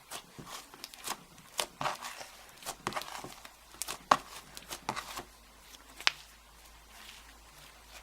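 Cloud slime being stretched and squished by hand, giving off irregular sticky pops and crackles that thin out about six seconds in.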